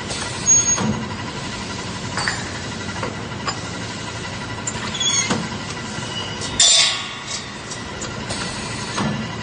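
Metal-cutting machine shop noise: a steady machine hum broken by irregular sharp metallic clanks, about six of them, the loudest about two-thirds of the way in.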